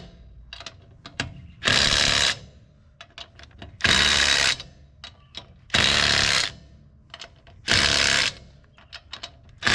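Impact wrench spinning lug nuts onto a wheel in four short bursts about two seconds apart, with small clicks of the socket and nuts being handled between bursts.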